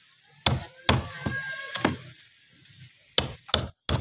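About six sharp knocks on metal in irregular succession, like a tool striking during repair work; one strike about a second in is followed by a brief metallic ring.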